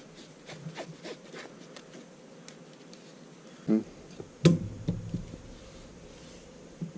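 Canvas rifle sling being handled and its webbing worked through the metal buckle: soft rustling and scratching of the strap, with a short knock and then a sharp click about four and a half seconds in.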